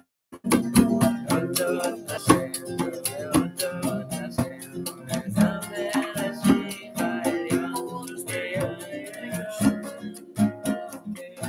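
Classical guitar strummed in a steady rhythm, with a djembe hand drum beaten along to it and voices singing a song.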